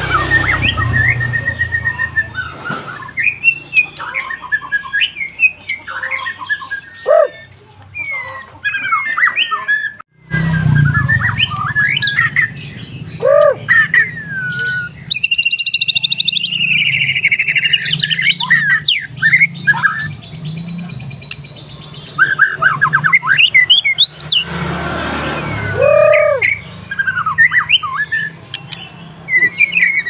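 Captive white-rumped shama (murai batu) singing in full, lively song: a varied, continuous run of clear whistles, fast trills, rising and falling sweeps and harsh chirps. There is a brief gap about ten seconds in.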